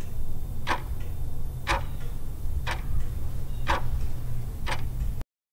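Countdown-timer clock-tick sound effect: five sharp ticks, one a second, over a steady low hum, cutting off suddenly near the end.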